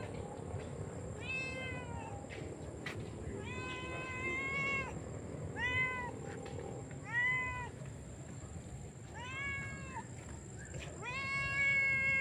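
An animal calling about six times in a row. Each call is a short, arching, pitched cry, and the last one near the end is longer.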